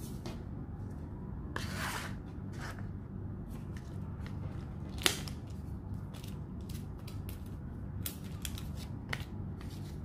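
Paper sticker sheets and small card and plastic sticker packets handled on a desk: short rustles and scattered light clicks, with one sharp click about five seconds in. A steady low hum runs underneath.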